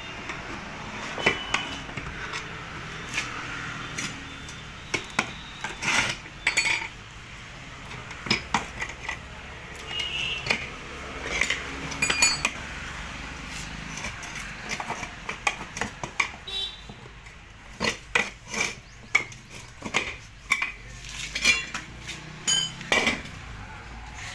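Metal tools clinking and clanking irregularly against metal during tyre repair on a concrete trolley wheel. Many sharp knocks at uneven intervals, some ringing briefly.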